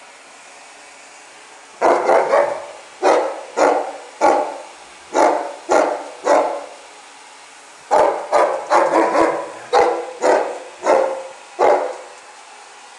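A Weimaraner barking at a vacuum cleaner head in a series of short, loud, separate barks. The barks start about two seconds in, pause briefly around the middle, then come faster in a second run that stops about a second before the end.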